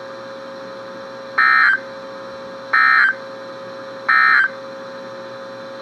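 Emergency Alert System end-of-message code from NOAA Weather Radio: three short, identical bursts of shrill SAME digital data tones, just over a second apart, over a steady low hum. The bursts signal the end of the alert message.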